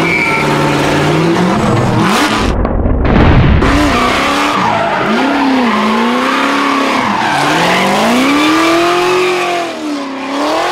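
Drift car's engine revving up and down hard while the tyres squeal and skid through a slide, loudest about three seconds in.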